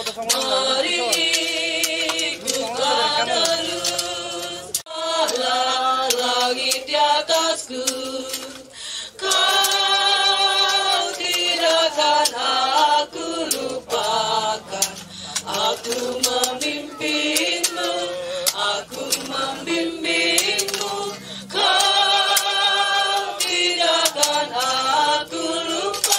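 A congregation singing a slow Indonesian hymn in unison, with long held notes that waver in pitch. Scattered short knocks come from hoes working soil into the grave.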